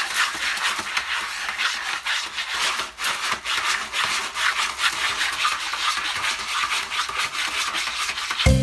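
Rapid, uneven scratching: many quick strokes of something rubbing on a rough surface. Music comes in near the end.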